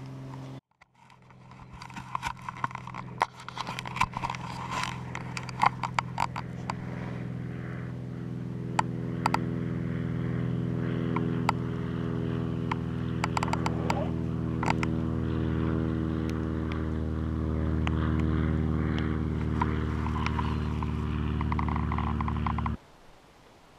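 Small bush plane's propeller engine droning steadily overhead, growing gradually louder as it approaches. Scattered sharp clicks sit over the drone. The drone cuts off abruptly near the end.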